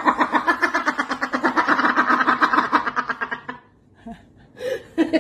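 Raven giving a rapid rattling, gurgling call, a fast even string of pulses for about three and a half seconds, then a short note near the end before the rattle starts again.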